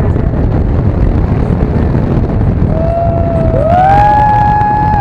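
Motorcycle riding at road speed: engine running and wind buffeting on the helmet-mounted microphone. In the last two seconds a held high tone sounds over it, sliding up in pitch about three and a half seconds in and then holding.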